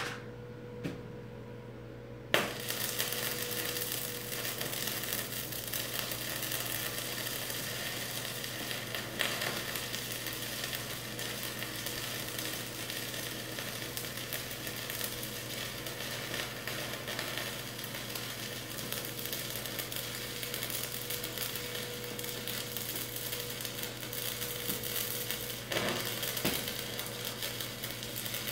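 Stick (arc) welding on a steel beam and post. After a few sharp clicks, the arc strikes about two seconds in and crackles and sizzles steadily. Near the end it breaks off briefly and picks up again.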